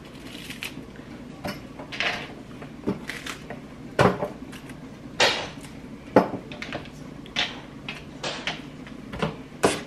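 Iceberg lettuce being pulled apart by hand: crisp rustles and snaps of leaves tearing off the head, coming at irregular intervals with a handful of sharper ones.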